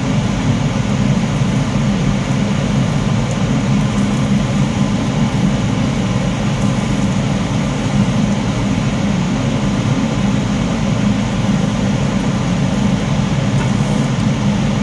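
Steady, loud low drone with no change in level or pitch.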